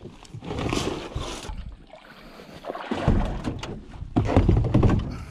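Handling noise: a series of irregular scuffs and knocks as a portable outboard fuel tank and its fuel line are handled and moved into the boat.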